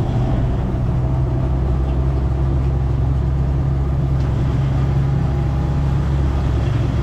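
Glass-bottom boat's engine running at a steady low drone, heard from on deck.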